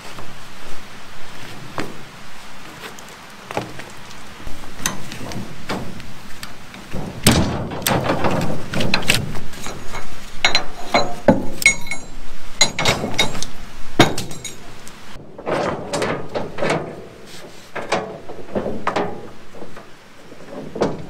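Steel rebar rods clanking and knocking against one another and the wooden trailer deck as they are pulled from the pile, in an irregular string of hits with a few short ringing metallic clinks. A ratchet strap is handled along the way.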